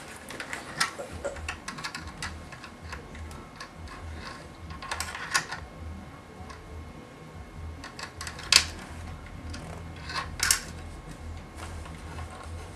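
Small flathead screwdriver prying and scraping at a laptop's plastic case: a run of irregular plastic clicks and ticks as the stubborn panel resists, with a louder sharp click about two-thirds of the way in and another soon after.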